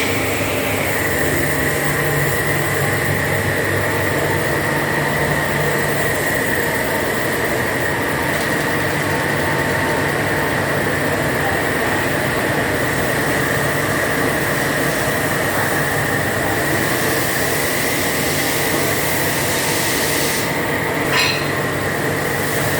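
Toyota Axio Hybrid's 1.5-litre petrol engine running steadily during a carbon-cleaning service of its combustion chambers, with a steady high whine over the engine noise. A brief click near the end.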